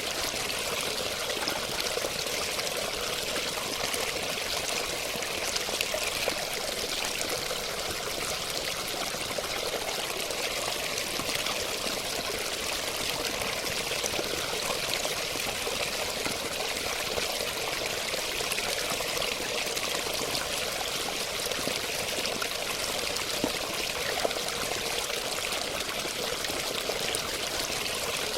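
Running water flowing steadily.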